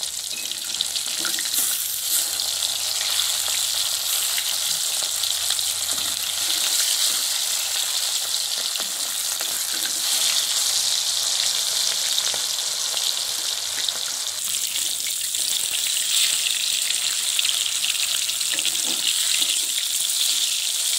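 Rohu fish pieces shallow-frying in hot mustard oil in a kadhai: a steady sizzle that stays even throughout.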